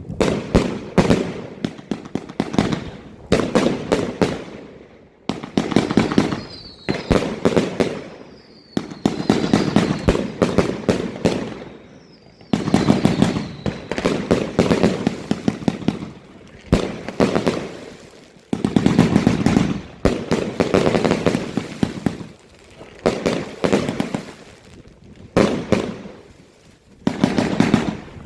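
Wolff Break Out 30 mm fireworks compound firing: salvos of rapid sharp shots and bursts, a new salvo every second or two, with crackling tails and a few faint whistles.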